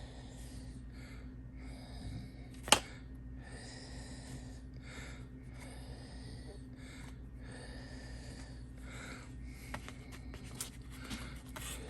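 Audible breathing close to the microphone, soft puffs about once a second, over a steady electrical hum. One sharp click comes a little under three seconds in, and a few light tool clicks come near the end.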